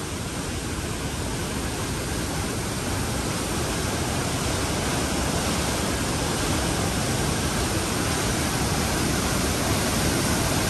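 River in flood churning in white water below a barrage, making a steady, loud rush of water that grows slightly louder towards the end.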